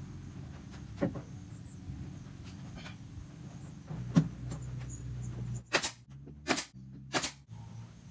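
Knocks during hands-on assembly of a subwoofer cabinet: two light clicks, then three loud sharp strikes about 0.7 s apart, over a low steady hum.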